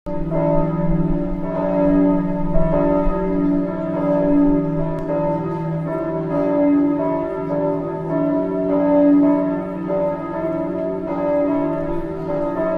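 Church bells ringing to call the congregation to worship: several bells of different pitch, struck over and over, their tones overlapping and ringing on.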